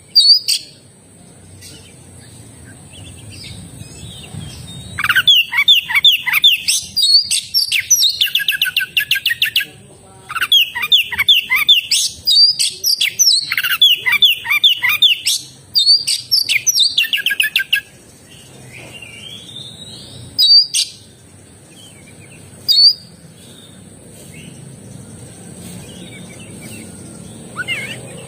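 Oriental magpie-robin (kacer) singing: long bursts of fast, repeated whistled and rattling notes from about five seconds in until about eighteen seconds, with single short calls before and after.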